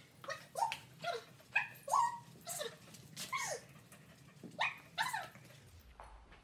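Border collie barking: a run of short, high barks, each falling in pitch, with a brief pause in the middle and a longer pause near the end.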